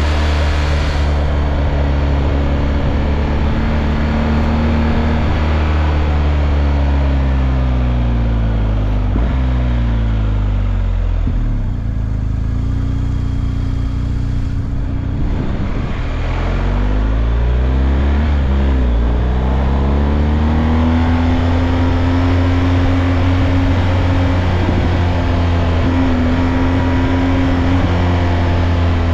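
Motorcycle engine heard from on board over steady wind rush. The engine note falls over several seconds as the bike slows, runs low for a few seconds, then rises again just past the middle and holds steady to the end.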